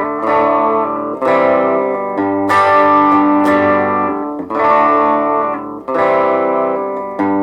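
Electric guitar (a Vintage VS6) played through a Positive Grid Reactor 50 1x12 combo amp on its Warm channel with the smooth control set to 'pushed': a series of strummed chords, a new chord struck about once a second and left to ring.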